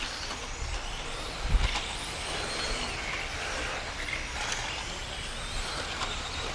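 Electric 1/10-scale RC touring cars running on the track, their motors whining faintly over a steady outdoor haze, with wind rumbling on the microphone and one low thump about a second and a half in.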